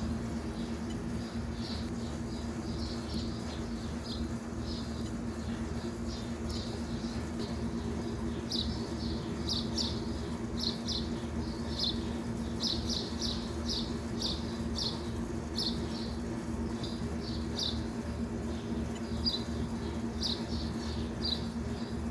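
A steady low mechanical hum, with small birds chirping repeatedly over it.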